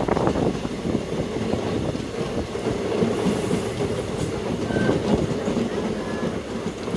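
Passenger express train running along the track: a steady rumble of wheels on rails with scattered clatter.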